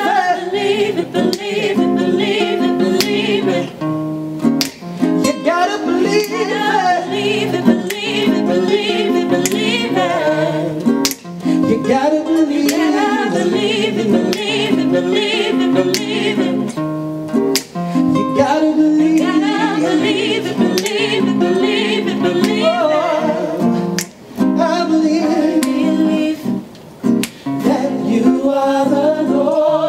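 Gospel vocal group singing a slow song live, women's and men's voices together, over plucked or strummed acoustic guitar.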